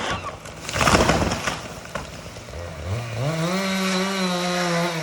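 A felled tree comes down with a short crash about a second in. Later a chainsaw revs up and holds at high speed, then starts to slow right at the end.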